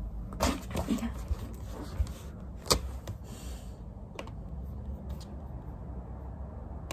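Desk handling sounds: a few scattered clicks and light knocks over a low steady hum, the loudest about three seconds in, as a laptop trackpad is clicked and the desk is touched.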